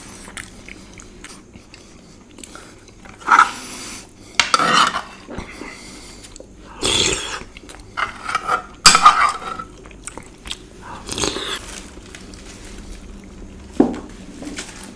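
Eating at close range: cutlery clinking and scraping on a dish, mixed with chewing and biting, in short bursts every second or two.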